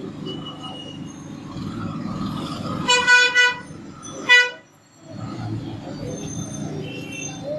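A vehicle horn honks twice over a steady low background rumble: a longer honk about three seconds in and a short one about a second later.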